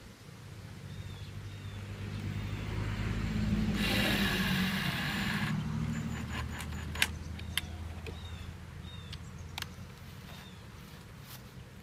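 A vehicle passes, swelling to its loudest about four seconds in and then fading. Near the peak a cordless drill whirs for under two seconds, driving a screw into a wooden platform leg. A few sharp clicks follow.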